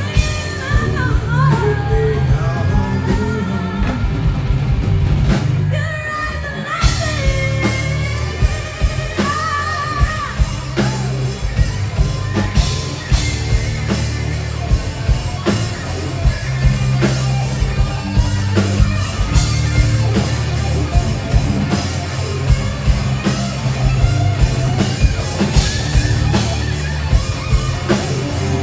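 A live rock band playing a song: drum kit, bass and electric guitar, with a singing voice.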